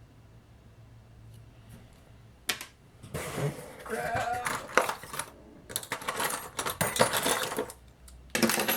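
Small metal tools and parts clattering and rustling on a work surface as they are handled and rummaged through, a quick run of irregular clicks and rattles that starts about two and a half seconds in after a quiet stretch.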